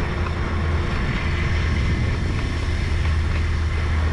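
Steady low rumble of a moving ride: road and wind noise on the microphone.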